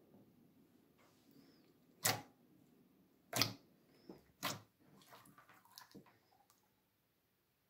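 Hard plastic toy dinosaurs set down on a tabletop: three sharp knocks about a second apart, followed by lighter clicks and soft sounds of hands handling slime.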